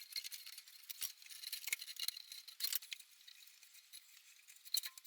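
Small metal parts clinking and rattling as they are handled, in a quick irregular run of light metallic clicks that thins out after about three seconds.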